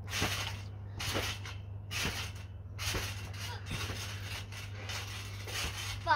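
A child bouncing on a trampoline: the mat sounds with each landing, about once a second. A steady low hum runs underneath.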